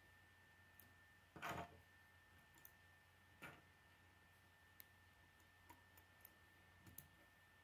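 Faint clicks and rattles of plastic K'nex pieces being handled and snapped together. The loudest clatter comes about one and a half seconds in, another follows about two seconds later, and a few light ticks come near the end.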